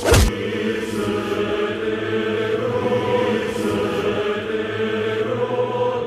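Horror film background music: a sudden loud hit, then a sustained drone of held tones with choir-like chanting.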